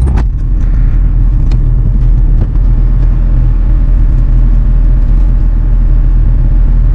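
Bobcat E42 mini excavator's diesel engine running steadily, with a few sharp clicks in the first few seconds.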